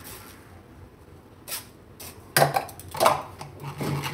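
Metal spoon scraping and stirring cashew powder against a stainless-steel mesh strainer, pushing it through to sift out the coarse bits. It starts faint, and about halfway in come several short, strong scrapes.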